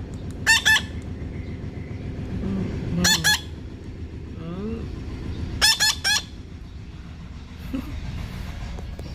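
Parrot squawking: three loud, harsh bursts of two or three squawks each, about every two and a half seconds, with a softer rising call between them.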